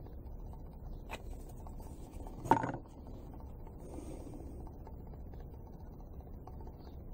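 Hands handling small plexiglass gearbox parts and a super glue bottle on a workbench: a light click about a second in, then one sharp knock about two and a half seconds in, over a low steady hum.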